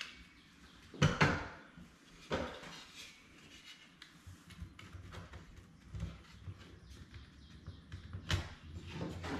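Wooden knocks and bumps as beadboard planks are set and pressed against the side of a kitchen base cabinet: a sharp knock about a second in, another a little over two seconds in and one near the end, with quieter handling noise between.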